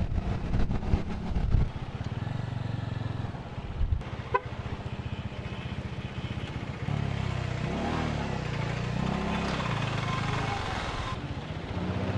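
Motorcycle engine running under the rider as the bike moves through traffic and slows, its note rising and falling between about seven and eleven seconds in. A short high beep sounds about four seconds in.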